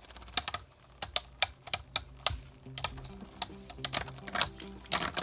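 Spinning 3D-printed Beyblade tops clashing in the stadium: a run of sharp, irregular clicks as they strike each other, more than a dozen hits.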